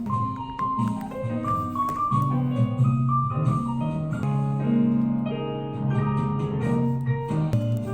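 Background music: a piano melody over sustained chords.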